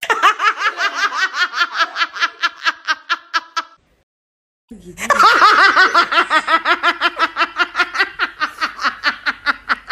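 Two meme laughter sound effects in a row: a fast, high-pitched giggling laugh that fades away after about three and a half seconds, a short silence, then another rapid, louder laugh starting about five seconds in.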